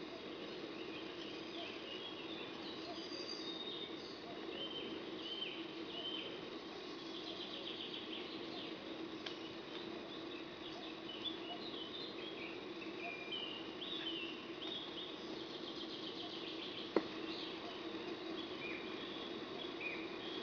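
Many short high-pitched animal chirps and squeaks over a steady low hum, with one sharp click about seventeen seconds in.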